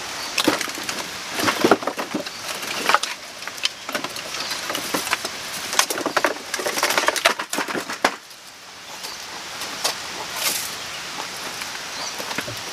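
Dry firewood sticks clattering and rustling as they are pulled from a woodpile and gathered up by hand. The clatter thins out about eight seconds in, leaving scattered crackles.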